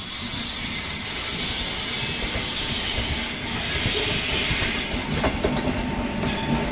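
Indian express train running on the line, heard from on board: a steady rushing of wheel and air noise. A few short clacks from the wheels come about five seconds in.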